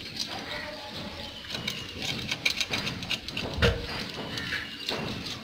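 A knife scraping and cutting into a whole raw fish held on a wet concrete floor: a busy run of short scrapes and clicks, with one low thump about three and a half seconds in.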